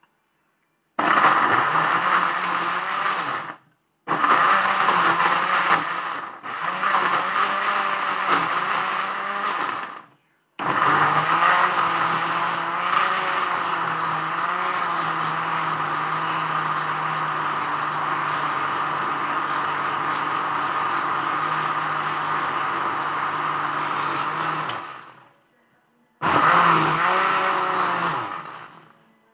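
Electric kitchen blender running in several runs with short stops between them, one long run of about fourteen seconds in the middle, grinding ginger, lemongrass, shallots and garlic with a little water into a paste.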